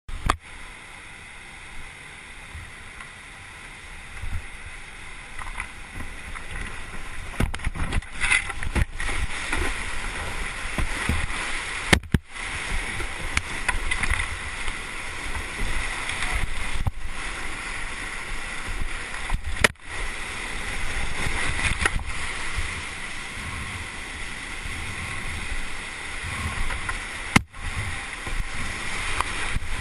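Whitewater rushing around a kayak running a steep, rocky creek gorge, with splashes from the boat and paddle. The rush grows louder after the first few seconds as the boat reaches the rapids, then stays loud and steady, cutting out briefly three times.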